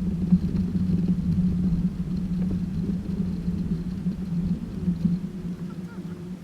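2016 Toyota Tacoma TRD Off-Road running with a steady low rumble, dropping off slightly near the end.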